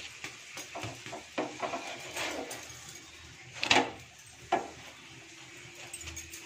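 Wooden spatula pressing and scraping a stuffed potato paratha against a frying pan, making light knocks and scrapes. Two louder strokes come a little under four seconds in and about half a second later.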